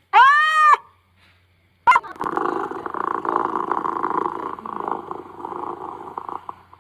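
A cat gives one short meow that rises and falls in pitch. A click follows, then a cat purrs steadily for about four seconds, fading near the end.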